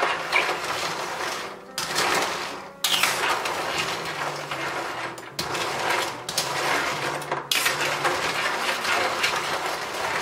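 Manila clam shells clattering and scraping against each other and a stainless steel bowl as hands rub them in salted water to clean the shells. Dense clicking that stops and starts abruptly a few times.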